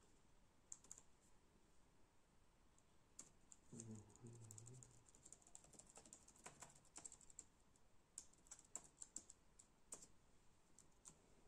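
Faint, irregular key presses on an Acer Aspire ES1-531 laptop's newly fitted keyboard, keys tapped one at a time to check that each one works. The taps come thickest in the second half.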